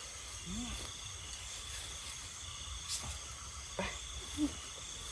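Steady high chirring of night insects in a field, with a couple of short clicks from handling a snare and a brief low voice sound.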